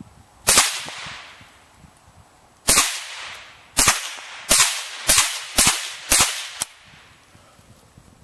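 Savage Model 64 semi-automatic .22 LR rifle firing seven shots: the first two are about two seconds apart, then five follow at roughly two a second, each a sharp crack with a short ring-out.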